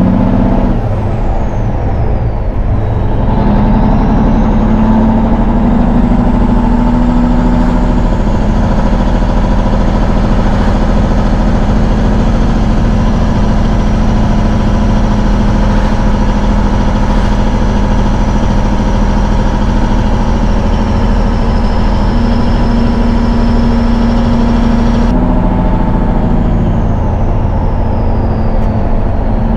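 1971 Peterbilt 359's diesel engine heard from inside the cab while driving. It pulls steadily, and its pitch drops and picks back up about two seconds in and again near the end as it goes through gear changes. A high whine falls and rises along with these changes.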